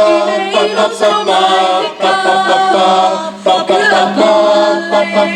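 A group of voices singing a song in Estonian in parts, a cappella, over a steady low held note.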